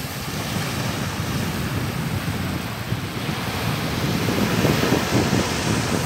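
Sea waves washing up the shore and over the sand in shallow water, a steady hiss of surf that builds up over the first second, with gusty wind rumbling on the microphone beneath it.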